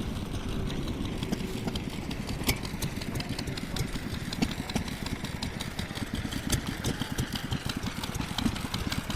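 Several small hit-and-miss engines running together, making a fast, uneven chatter of low firing knocks with sharp clicks scattered through it.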